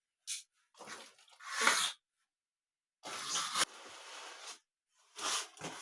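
Cardboard shipping box and packaging being opened and handled: a series of short rustling and scraping noises, the longest and loudest about three seconds in.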